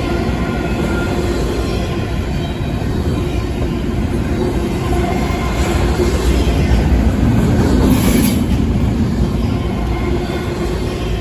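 Double-stack intermodal well cars rolling past close by: a steady rumble of steel wheels on rail, with faint steady whining tones above it, swelling louder about two-thirds of the way through.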